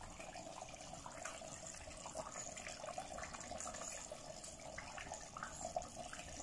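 Pot of tomato and palm-oil fish stew simmering on a gas burner: faint, steady bubbling with small irregular pops.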